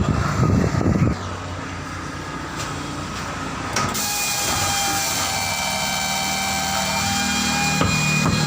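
A low steady hum, then from about four seconds in a power tool running steadily with a whine held at a fixed pitch. In a tubeless tyre plug repair, this is typical of a buffer or reamer at work.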